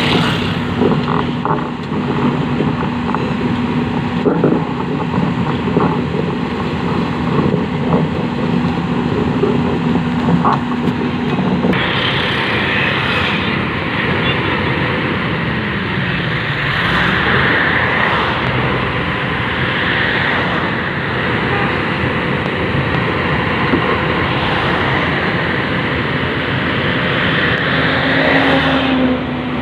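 Excavator's diesel engine running steadily under hydraulic work. The sound changes abruptly about twelve seconds in to a fuller, noisier note. Around the middle the engine note dips briefly and recovers, as if under load.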